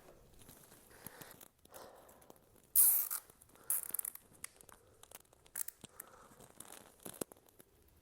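A plastic zip tie being cinched tight with two quick ratcheting zips, about three and four seconds in, followed by a few small clicks of handling.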